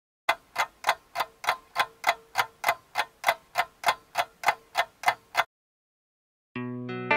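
Clock-ticking sound effect: even, sharp ticks about three a second for some five seconds, then stopping, marking time passing while the food cooks. Guitar music begins near the end.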